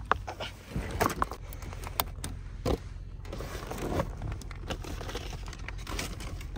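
Handling noise close to the microphone: scattered clicks, scrapes and rustles of small objects being moved about, over a low steady hum.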